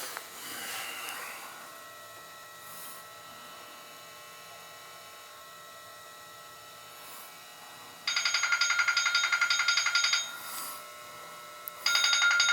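Quiet room tone, then a telephone ringing with a fast electronic trill: one ring of about two seconds some eight seconds in, and a second ring starting near the end.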